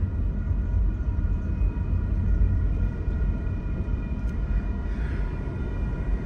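Steady low road and engine rumble heard inside a moving car's cabin, with faint steady high-pitched tones above it.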